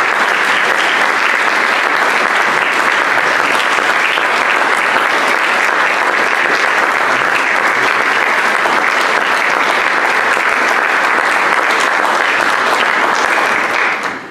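Audience applause: many people clapping steadily, dying away near the end.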